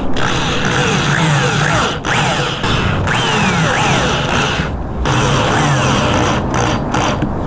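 Corded drill driving screws through a plywood top into a wooden frame. The motor runs with short falling whines again and again, and stops briefly about two seconds in, around five seconds in and near the end.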